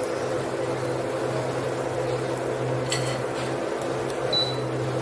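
Sliced onions sizzling in olive oil in a nonstick frying pan, over a steady low hum, with a couple of faint clicks about three seconds in.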